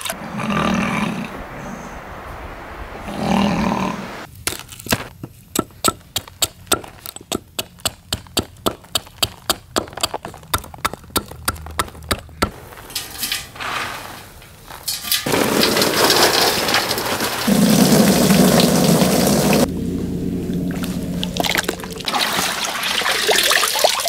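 Water sloshing as a wet hide is worked in a bucket, then a run of sharp, evenly spaced knocks, about three a second, for several seconds, then louder splashing and pouring of water near the end.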